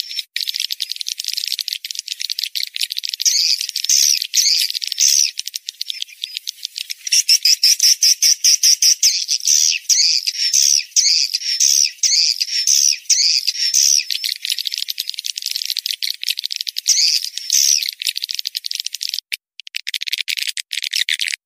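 Swiftlet call recording, a 'suara panggil' lure track played to draw swiftlets into a nest house: fast trains of dry clicks with repeated high chirps that rise and fall, thickest through the middle. The track has no low end at all, and it breaks up with short gaps near the end.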